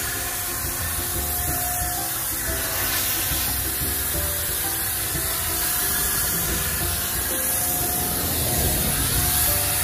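Handheld paint sprayer hissing steadily as it sprays stain onto a wooden fence, under background music with held notes.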